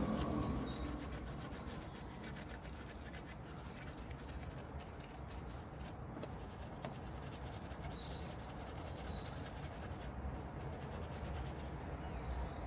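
Small detailing brush scrubbing a wet, sudsy alloy wheel, a soft steady rubbing. A bird chirps a few quick falling notes just after the start and again about eight seconds in.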